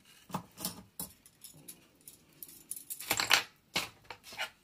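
Roll of red-lined 3M mounting tape being run out along a strip of paper and pressed down by hand: a string of short crackles and taps, loudest a little past three seconds in.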